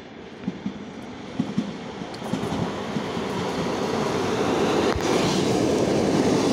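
ER9T electric multiple unit pulling in along the platform and passing close by. A few sharp paired clicks come from the wheels over rail joints in the first couple of seconds, then a steady rumble of wheels and running gear grows louder as the cars sweep past.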